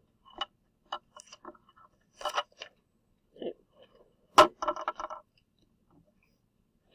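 Handling noise at a desk: a worksheet being slid across and a highlighter being picked up, heard as scattered clicks, taps and scrapes, with the sharpest click about four and a half seconds in followed by a quick run of taps.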